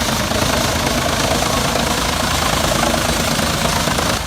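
Engine of a heavy wood-processing machine running steadily, with a dense mechanical din.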